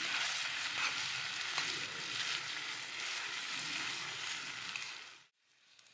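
Food sizzling and frying in a pan: a steady hiss with small pops, which cuts off suddenly about five seconds in.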